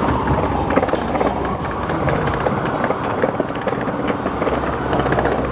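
Steady urban rumble with many small clicks and rattles, and a falling whine that fades out about half a second in.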